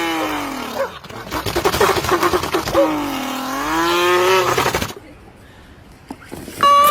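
A drawn-out wailing cry, heard twice: first falling in pitch, then dipping and rising again. Between the two cries there is a rattling, scraping clatter.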